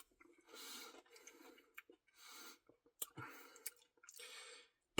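Faint chewing of ice cream, in three soft spells, with a few light clicks between them.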